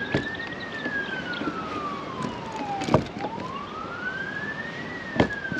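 Emergency vehicle siren wailing, one clean tone sliding slowly up and then longer and slower down, in two cycles. A few sharp knocks come on top, about three seconds in and near the end.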